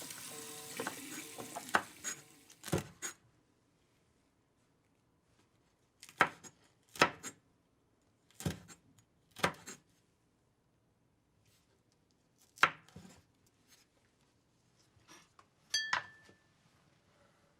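A telephone busy tone, a 450 Hz beep repeating over line hiss, ends about a second in. It is followed by about eight separate knocks and clinks, like kitchenware or chopping, with one near the end ringing briefly.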